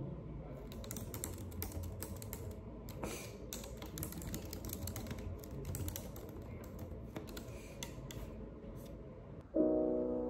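Typing on a computer keyboard, an irregular run of quick key clicks. Near the end, background piano music comes in.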